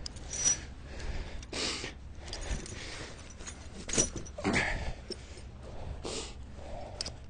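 Steel tire chain links clinking and scraping against each other and the tire as the chain's fastener is worked to take up another link. A sharp clink comes about four seconds in, and a few short breathing sounds fall between the clinks.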